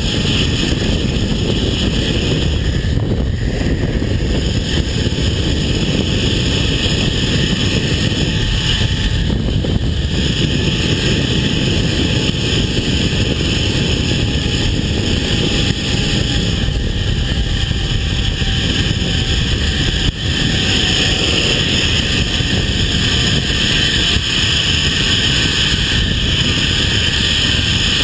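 Zip line trolley running fast along a steel cable, a steady whirring hum from its pulleys, under heavy wind buffeting on the microphone. A faint tone slowly drops in pitch through the middle of the ride.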